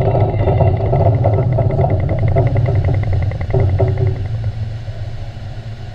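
Deep rumble of a large underwater explosive charge set off in a ship shock trial, fading over the last two seconds. A faint rapid ticking runs under it for the first four seconds.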